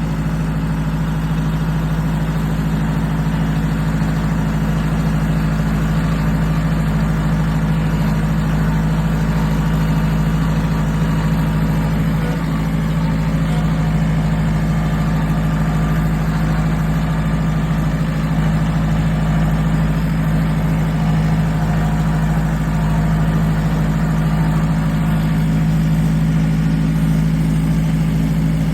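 Engine idling steadily, its pitch and loudness unchanging throughout.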